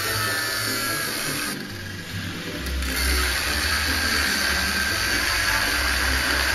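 Electric angle grinder with a thin cut-off disc cutting into the metal casing of a Triumph Bobber catalytic converter: a steady high whine with the hiss of the disc biting into the metal. The sound dips for about a second shortly before two seconds in, then comes back louder as the disc cuts again.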